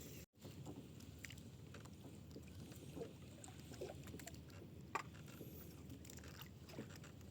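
Faint low water-and-wind noise around a small fishing boat, with scattered light knocks and ticks and one sharp click about five seconds in.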